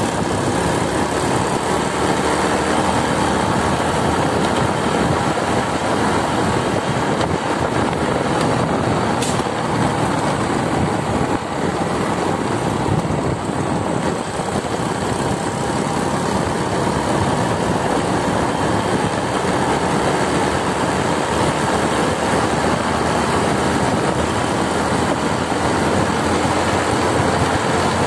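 Motorcycle riding at a steady cruise: the engine running under a constant rush of road and wind noise on the microphone.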